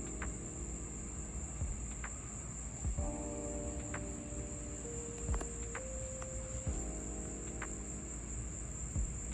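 Crickets chirring in a steady, high trill. Underneath are low, held tones that change every second or two, and a few faint clicks.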